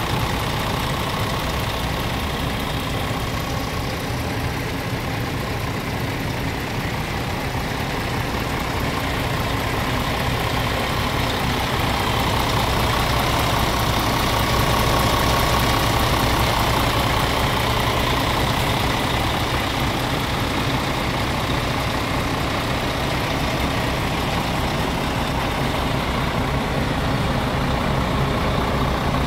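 Scania R450 tractor unit's 13-litre straight-six diesel idling steadily, a little louder through the middle stretch.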